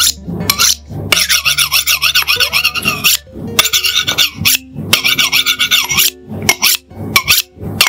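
Two steel knife blades scraped against each other, a harsh metallic rasp: one long run of strokes in the first half, then shorter, quicker strokes toward the end.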